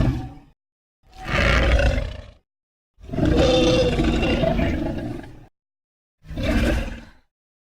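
Vastatosaurus rex roar sound effects: the end of one roar, then three separate roars with a deep low rumble, each cut off into dead silence. The middle roar is the longest, about two and a half seconds, and the last is short.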